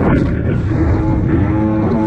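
Jet ski engine running, its pitch dipping and then rising as the throttle changes.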